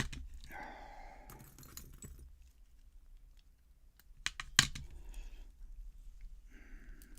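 Small lock pins and a lock core being handled as the pins are taken out: a few light clicks and brief scraping, with one sharp click about four and a half seconds in.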